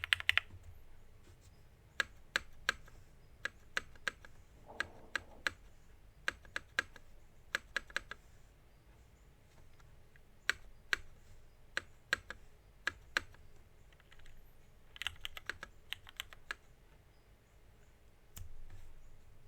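Typing on a KMG TKL mechanical keyboard with lubed, filmed Hyperglide Black linear switches on an aluminium plate and JTK Emerald keycaps. Single keystrokes with pauses between them, and quick runs of keys near the start and again about three quarters of the way in.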